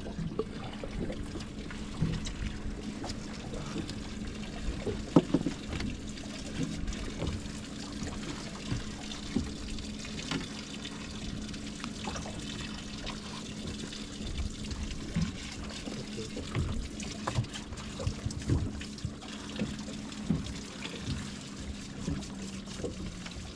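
Water trickling and splashing, with scattered small knocks, over a steady low hum.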